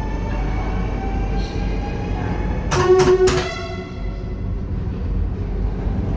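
A Dutch electric train running with a steady low rumble and a faint whine. About three seconds in, its horn sounds in a short blast under a second long, pulsing three times.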